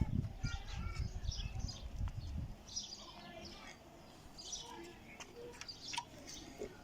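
Small birds chirping and tweeting in short, scattered calls. Low rumbling noise is also heard for the first couple of seconds.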